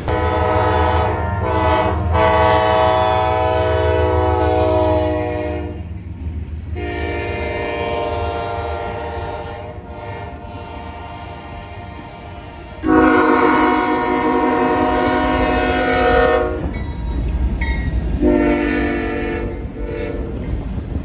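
Diesel freight locomotive air horns sounding four long chord blasts, the loudest starting suddenly about two-thirds of the way in, over the low rumble of passing trains.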